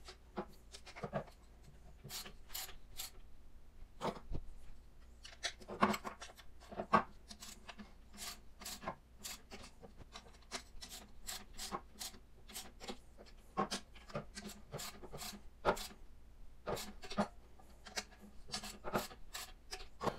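Click-type torque wrench ratcheting on the propeller hub bolts: short runs of quick clicks with brief pauses between, as the bolts are tightened one after another to their final torque.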